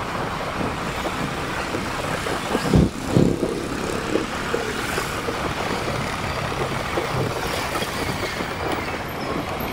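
Motorcycle and scooter traffic heard from a moving motorcycle: a steady mix of engine and road noise, with a couple of brief low thumps about three seconds in.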